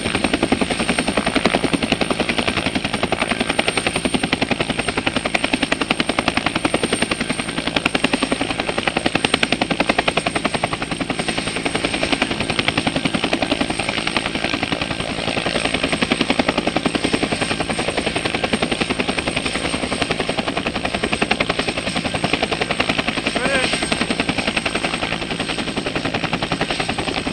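Helicopter running at close range, its rotor chopping fast and evenly over a steady high-pitched whine.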